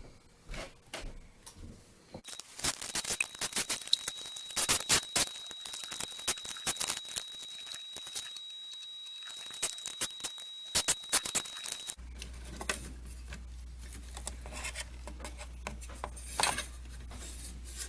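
Scattered clicks, taps and scrapes of small tools and parts being handled while the old forward/reverse switch is taken out of a reel-to-reel tape deck, with a faint steady high whine through the middle stretch.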